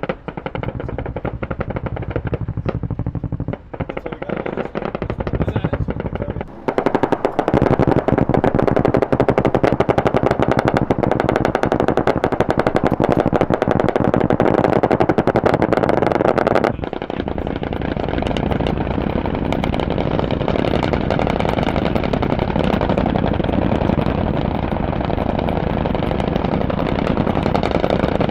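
Rapid automatic gunfire from AH-1Z Viper attack helicopters on a live-fire run, the shots coming so fast they run together into long strings. It becomes louder and denser about 7 s in and drops back somewhat about 17 s in.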